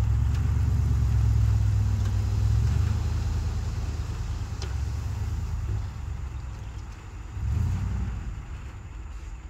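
Dump truck's diesel engine running hard while the bed is tipped and the soil load slides out. The engine eases off about six seconds in, then picks up briefly again near the end.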